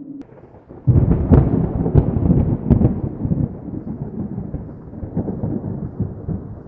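A thunderclap: a sudden loud crack about a second in, several sharp crackles over the next two seconds, then a deep rumble that slowly fades away.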